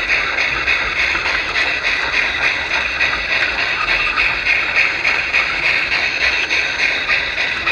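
G-gauge model train running along garden railway track, heard from a camera riding on the train: a steady rolling hiss with light wheel clicks about three times a second.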